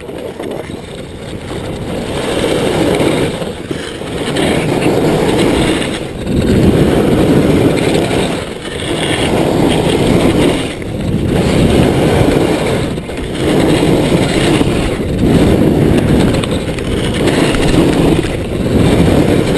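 A monoski carving turns on packed snow at speed, with wind rushing over the microphone. The noise builds over the first few seconds, then swells and dips about every two seconds as each turn is made around the gates.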